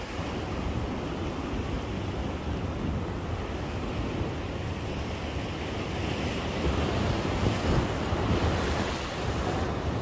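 Wind rushing over the microphone, with waves washing against a breakwater; a fairly even, noisy rush that swells a little late on.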